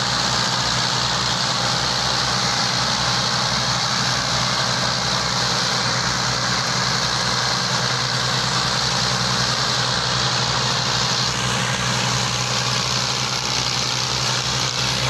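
Massey Ferguson tractor diesel engines, including an MF 240's three-cylinder diesel, running steadily with an even low throb.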